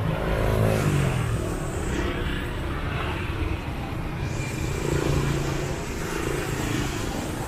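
Street traffic going by: a small motorbike engine whose pitch falls over the first second and a half, then a steady traffic hum.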